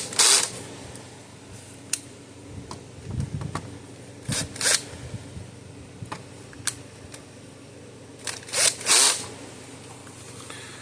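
Hand work on an electric fence charger's wiring: scattered sharp clicks and three pairs of short scraping bursts, about four seconds apart.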